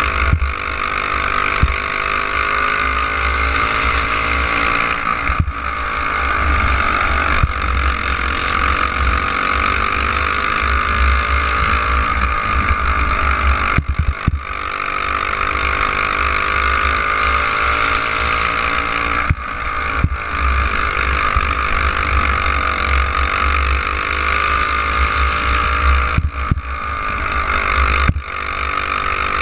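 Dirt-track racing kart engine running hard, heard from on board, its pitch rising and falling slowly as the kart accelerates down the straights and eases through the turns, with a few brief dips. Heavy wind rumble on the microphone runs underneath.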